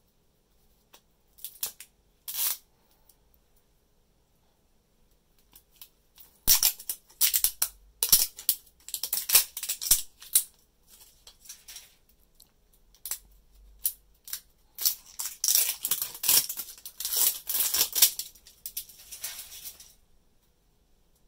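Plastic film wrapping on an L.O.L. Surprise! Lil Sisters toy ball crinkling and crackling as fingers handle and peel it. Two short bursts come first, then two longer runs of crackling with quiet between them.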